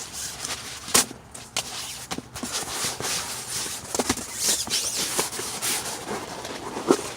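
Rustling and handling noise as a sleeping pad is unpacked inside a tent, with scattered sharp clicks and knocks and swishing stretches through the middle.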